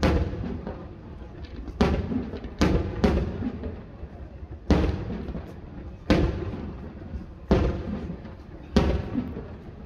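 Aerial fireworks shells bursting: eight booms at uneven intervals, each trailing off before the next.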